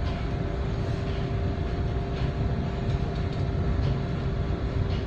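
Steady low rumble and hum of a ship's engines and machinery under way, heard inside the bridge, with a faint steady tone above it.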